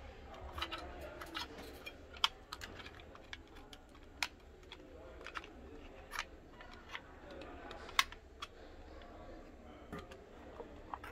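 Irregular plastic clicks and knocks as the round housing of an LED surface panel light and its parts are handled and fitted together, with a few sharper clicks among them.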